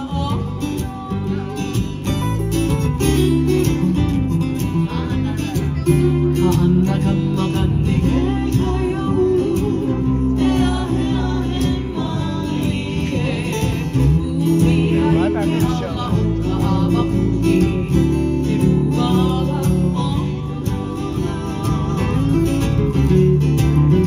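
Live Hawaiian music played for hula: two acoustic guitars and a ukulele strumming and picking, with singing over them.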